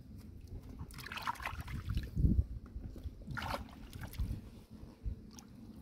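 Hands splashing and sloshing in shallow pool water, in two short bursts about a second in and about three and a half seconds in, over a low rumble.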